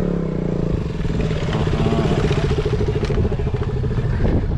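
Motorcycle engine running steadily while riding, its firing note holding an even pitch, with a low rushing noise underneath.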